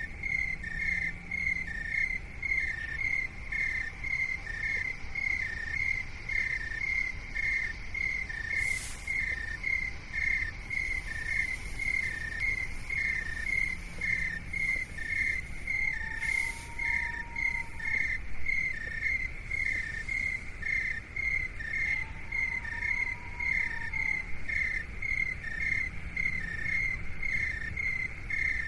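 Steady insect chirping like crickets, a regular pulse at about two chirps a second that alternates between two close pitches, over a constant low rumble. Soft, brief tones that rise and fall come in every few seconds.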